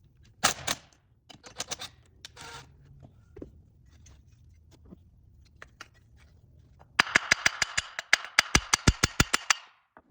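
A few light knocks of tools and metal parts, then, about seven seconds in, a hand ratchet clicking rapidly, about eight clicks a second for nearly three seconds, as fasteners come off a small engine.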